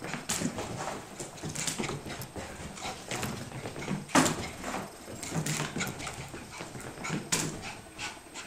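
A dog scrambling about: irregular clicks, scuffs and knocks, the sharpest about four seconds in.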